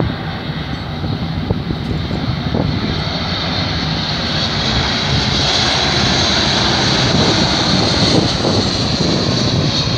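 Jet airliner's engines on final approach to land, flying low past. The engine noise builds steadily, with a high whine that grows through the middle and is loudest near the end.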